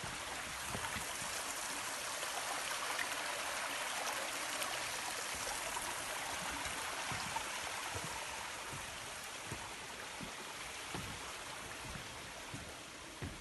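Steady rushing of a stream, an even hiss of running water throughout, with occasional soft low thumps.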